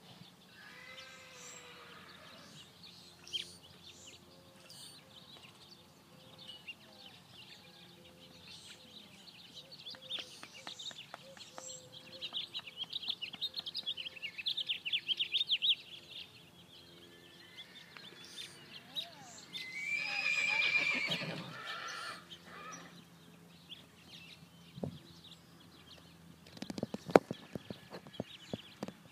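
Horses whinnying: a long quavering call about halfway through and another loud one a few seconds later. A single sharp knock comes near the end.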